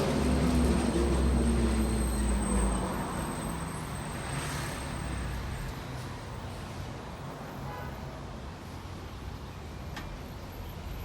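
A motor vehicle's engine passing close by, loudest for the first three seconds and then fading into steady road traffic noise.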